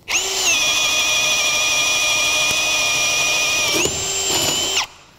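Cordless drill in low gear boring through a wooden board with a self-feeding spade bit: a steady motor whine. Near the end the pitch steps up as the bit breaks through and the motor spins free, then the drill stops.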